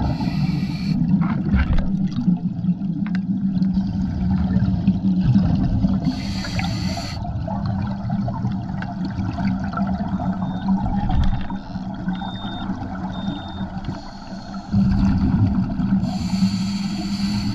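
Scuba breathing underwater through a regulator: three hisses of air on the inhale, about a second each, over a steady low rumble and bubbling of exhaled air.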